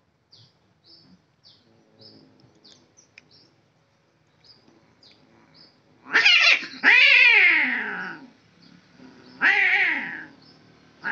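Male domestic cats yowling at each other in a territorial standoff: a loud, wavering yowl begins about six seconds in and runs into a long cry that falls in pitch, and another wavering yowl comes near the end.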